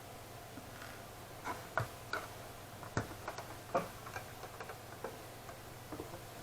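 Irregular small clicks and taps from hands and tools working on a graphics card, clustered in the middle, over a steady low hum.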